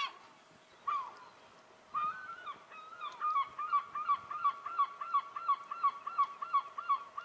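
A bird calling: a few separate honking calls, then a long rapid series of repeated calls, about three a second.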